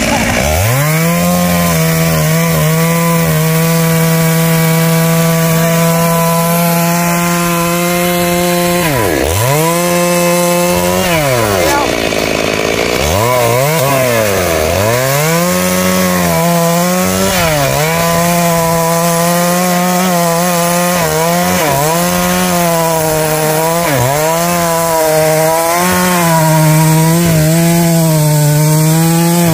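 Stihl two-stroke chainsaw running at high revs while cutting rain-tree wood, its pitch wavering as the chain loads in the cut. Around nine seconds in, again near eleven, and from about thirteen to fifteen seconds in, the revs fall away sharply and climb back to full.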